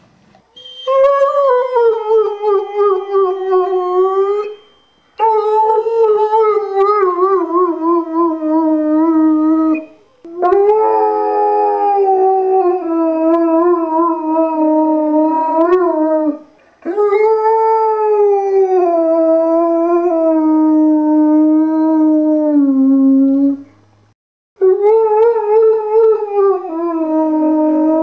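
Irish Wolfhound howling ('singing') in five long howls, each several seconds long, that start high, waver and slide down in pitch, with short breaths between them.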